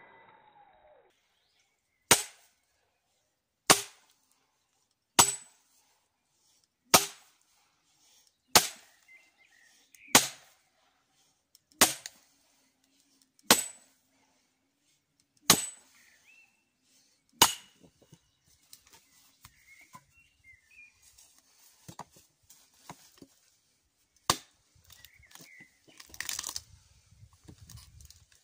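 Hammer striking a nail driven into a log to split firewood: ten sharp blows about every second and a half, each with a brief metallic ring, then scattered handling sounds and one more blow near the end.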